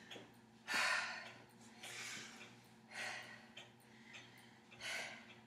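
A woman breathing hard, catching her breath after a round of box jumps: four heavy, noisy breaths a second or more apart.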